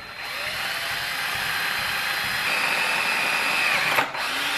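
Electric drill running, boring the first 1/8-inch hole into a 4L80E automatic transmission. It stops briefly about four seconds in, then runs on.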